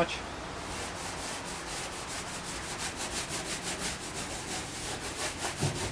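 Sandpaper rubbed back and forth by hand over the painted steel of a 1959 VW Type 2 single cab's tailgate, a steady rasp of about four strokes a second.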